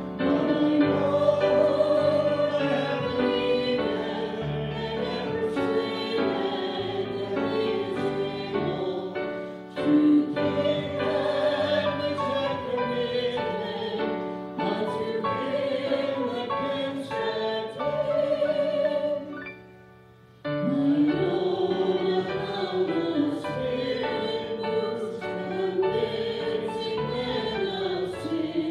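A hymn sung with instrumental accompaniment, in held, sustained notes. The music breaks off briefly about twenty seconds in, then resumes.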